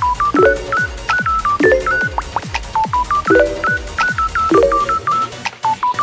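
Background electronic music: short, bleeping synth notes over a steady kick-drum beat and repeated chords.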